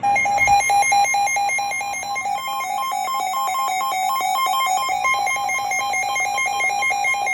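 Weather radio alert alarm: loud electronic beeping in rapid pulses, about five a second, switching between two pitches. It announces an incoming severe thunderstorm warning.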